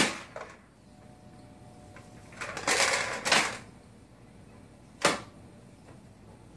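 Sharp clicks and a short clattering rattle from a glass TV stand as a baby grabs and knocks the edge of its top shelf: one click at the start, a longer clatter about two and a half seconds in, and another single click about five seconds in.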